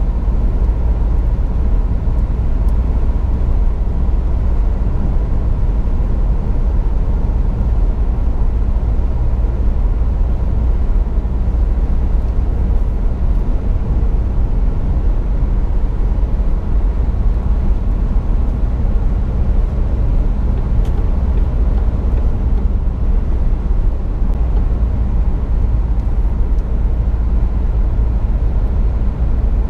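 Steady low road and engine noise heard inside a car's cabin while it cruises on a motorway, with no breaks or changes.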